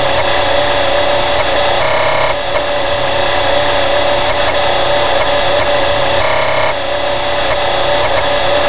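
Emulated floppy disk drive of a TRS-80 Model I booting and reading its DOS disk: a steady motor hum with a strong tone, with irregular head clicks and two brief louder stretches, near 2 and 6.5 seconds.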